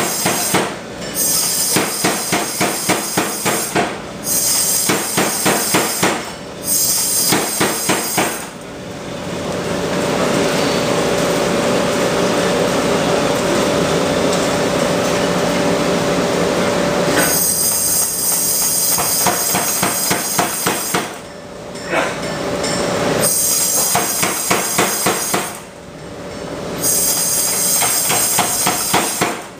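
Blu Max air power hammer striking hot steel in runs of rapid, even blows, stopping briefly between runs. In the middle, for about eight seconds, the blows stop and a steady rushing noise with a hum takes over.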